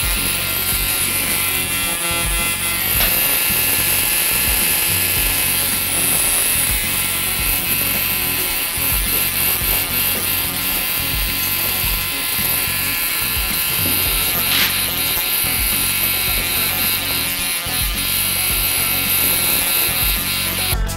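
A handheld electric mesotherapy device buzzing steadily during a beard treatment, under background music.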